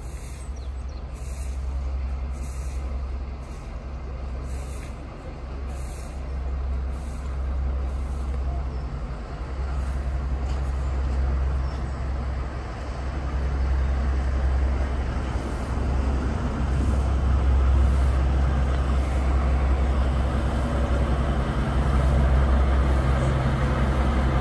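Heritage diesel locomotive engine running with a deep, steady drone, growing gradually louder.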